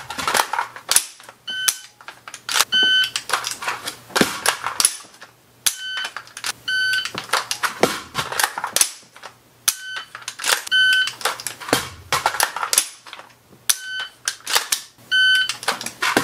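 Shot timer beeping in a repeating cycle, a longer start beep and then a short par-time beep about three seconds later, while an AR-15 rifle is run through speed reloads between them: a rapid clatter of magazines being pulled and seated, bolt and trigger clicks, about four reloads in all.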